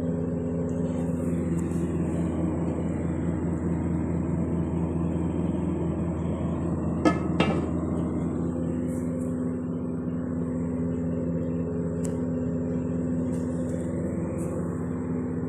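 Steady mechanical hum with a low drone, with one sharp clack about seven seconds in.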